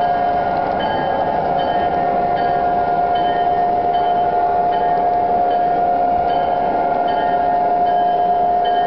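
Model diesel locomotive's Proto-Sound 2.0 electronic bell ringing steadily, struck about every three-quarters of a second, over the rumble of the O-scale train's cars rolling along the track.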